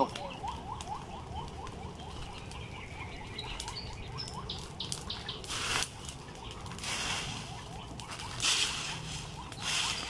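Stick broom sweeping dry leaves across stony ground onto a smouldering leaf pile: four swishing strokes in the second half. A faint quick chirping repeats about three times a second in the first half.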